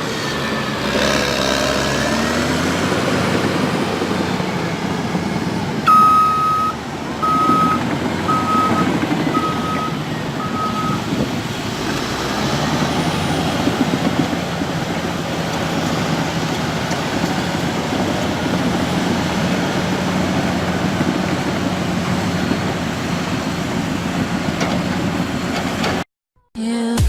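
Heavy diesel engines of a truck and an excavator running steadily, with a warning alarm beeping five times about a second apart, the first beep a little longer. The sound cuts off abruptly near the end.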